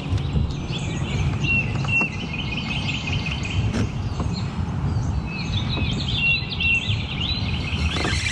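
Birds chirping and trilling repeatedly over a steady low rumble.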